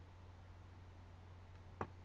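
Near silence: a faint steady low hum with one short computer mouse click near the end.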